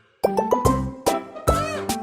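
Playful background music: sharp plucked notes over a bass line in a bouncy rhythm, with a sliding, wobbling note about three-quarters of the way through. It starts after a brief gap at the beginning.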